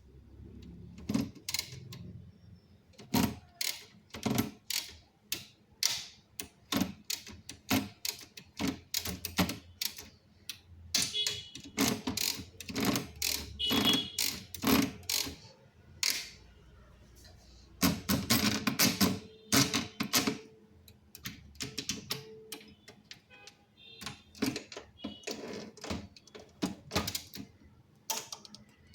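Keys of an old manual Tamil typewriter being struck, an irregular run of sharp clacks in bursts with short pauses between them.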